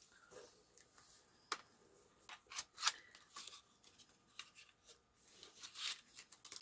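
Cardboard packaging of a makeup brush set being handled and opened by hand: scattered faint taps, clicks and scraping rustles, with a longer rustle near the end.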